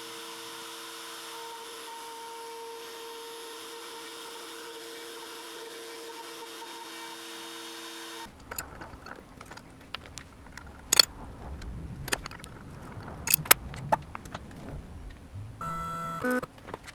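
CNC router spindle running at a steady speed with a steady hum. About eight seconds in the hum cuts off suddenly and gives way to scattered sharp clicks and knocks, with a brief whir near the end.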